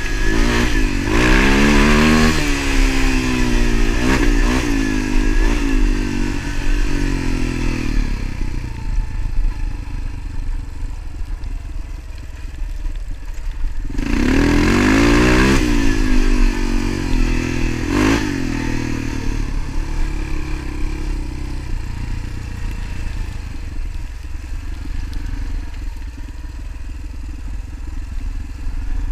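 Motorcycle engine under way, revving up with rising pitch near the start and again about halfway through, easing off in between and running more steadily toward the end, over a constant low rumble.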